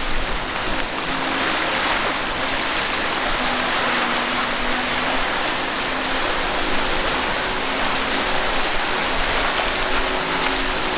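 Outboard motor running at speed on a center-console boat, a steady low hum under a loud, even rush of water spray and wind.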